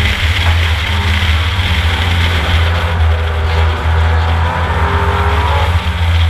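Ford Capri race car's engine heard from on board, running hard at racing speed with a steady, loud low exhaust note.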